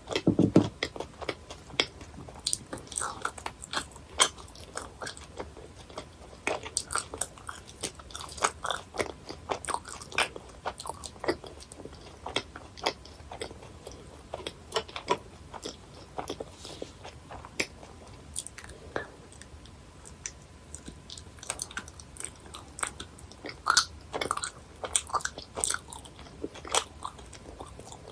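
Close-miked chewing of chewy gummy candies, a stream of many small sharp wet clicks and bites, with a louder bite at the start.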